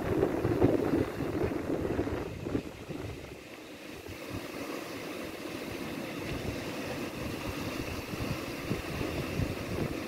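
Surf breaking and washing up a sandy beach, with wind buffeting the microphone; louder and gustier for the first two seconds or so, then a steadier wash.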